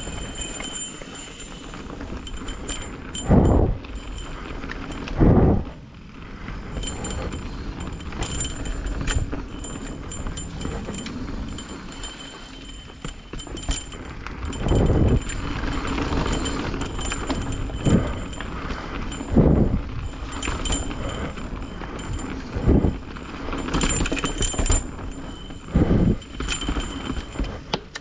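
Mountain bike riding down a trail: steady tyre and drivetrain noise with rattling clicks, broken by about eight heavy thumps as the bike hits bumps.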